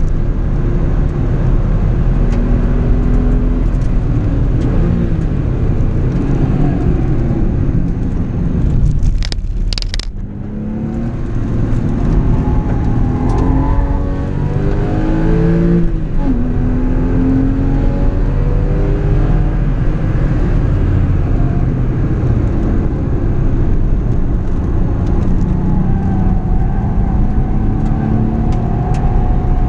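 Porsche 996's flat-six engine at full track pace, heard from inside the cabin. It eases off briefly about a third of the way in, then climbs steadily in pitch as it accelerates and drops sharply at an upshift, running hard again afterwards.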